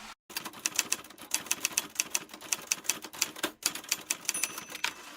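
Typewriter keys clacking: a rapid, irregular run of sharp keystrokes, several a second, that starts and stops abruptly.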